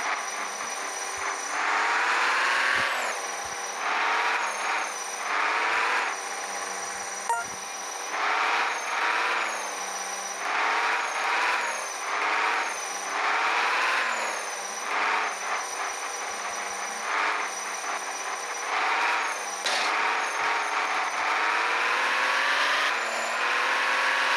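Toy cars whirring in a run of short whines, each rising in pitch, about one every second or two.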